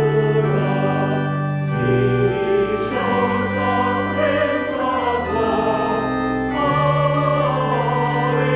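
Church choir singing a hymn in sustained chords over organ accompaniment, with a few sung consonants cutting through.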